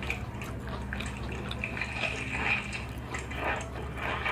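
Close-miked wet chewing and mouth sounds of a mukbang eater eating, in irregular moist clicks and smacks over a steady low hum.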